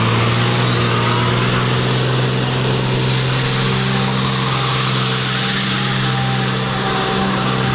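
An engine running steadily at a constant speed: a loud, even drone with a hiss over it, the pitch not changing.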